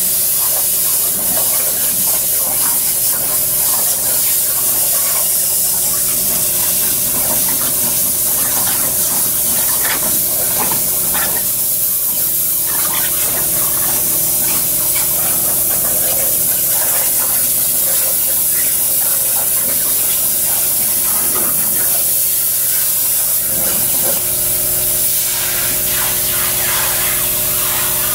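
CNC plasma cutter torch hissing steadily as it cuts 3/16-inch steel plate: the arc and compressed-air jet. A steady hum runs underneath and changes pitch about three-quarters of the way through.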